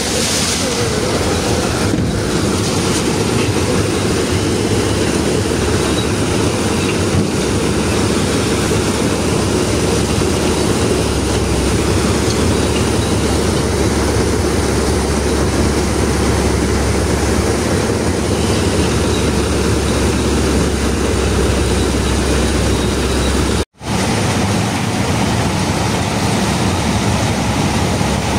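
Truck engine running steadily with road and body rumble as the truck drives along; the sound cuts out for a split second near the end.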